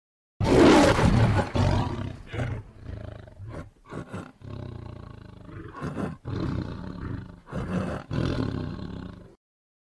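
Tiger roaring: one loud roar about half a second in, then a run of shorter, weaker roars and growls that stop shortly before the end.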